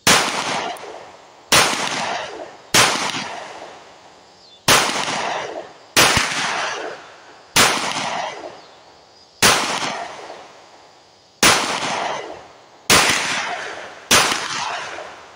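Ten pistol shots from a Heckler & Koch P30L, fired one at a time about one to two seconds apart, each followed by a long echo that fades before the next shot.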